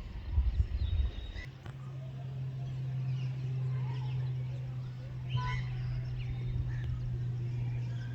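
Scattered faint bird chirps and one clearer bird call about five seconds in, over a steady low hum that starts about a second and a half in. Low thumping on the microphone comes before the hum.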